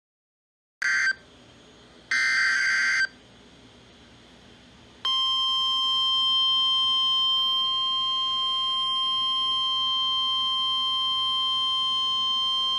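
Emergency Alert System weather alert from NOAA Weather Radio: two short bursts of SAME digital header data, then, about five seconds in, the steady 1050 Hz warning alarm tone starts and holds.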